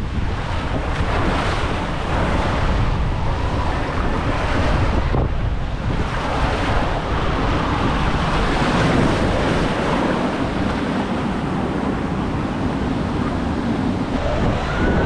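Steady rush of water and wind on the microphone as an inflatable tube rides a Master Blaster water slide, easing briefly about five seconds in.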